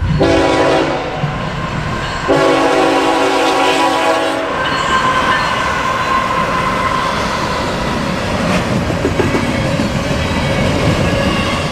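Diesel freight locomotive horn: a short blast right at the start, then a longer blast of about two seconds. After that comes the steady running noise of the passing BNSF freight train.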